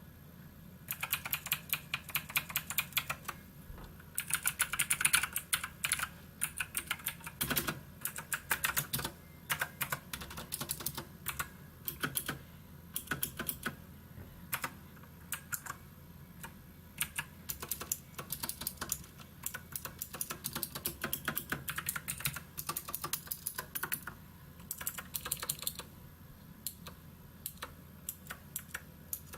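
Typing on a SKYDIGITAL NKEY Z1 mechanical keyboard: fast runs of sharp key clicks in bursts, with short pauses between runs.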